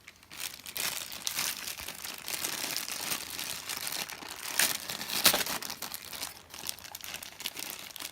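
Foil blind bag from a vinyl-figure mystery box crinkling and crackling irregularly as it is squeezed and handled, with a couple of sharper crackles about halfway through.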